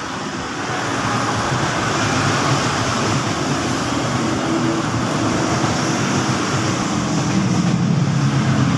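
Steady mechanical running noise with a low hum that grows stronger in the second half.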